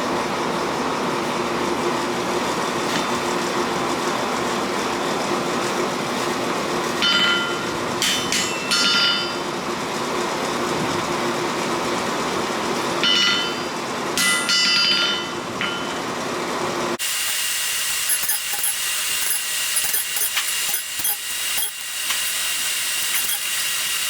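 Electric grinder running steadily, with two short spells of a ringing, high grind as the steel bowie knife blank is pressed against it. About two-thirds of the way through the sound cuts abruptly to a hissing, scraping rasp with small clicks, typical of the steel being worked with a hand file.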